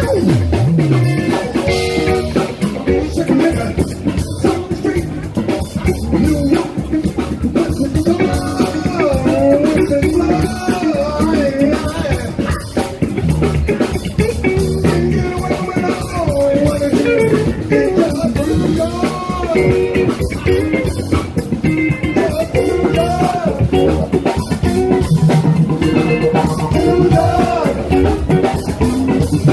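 Live band playing an upbeat groove: drum kit and electric bass keep a steady beat while a melody line wavers over it.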